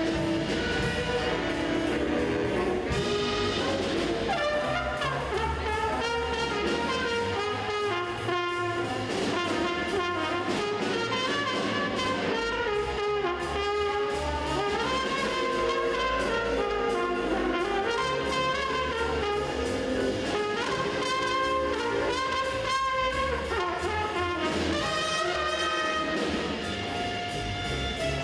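A high-school jazz band playing a swing tune, with trumpets, trombones and saxophones over bass and drums.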